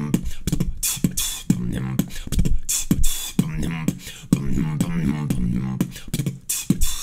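Human beatboxing: a rhythmic pattern of mouth-made kick, snare and hi-hat sounds, with low hummed bass tones in between.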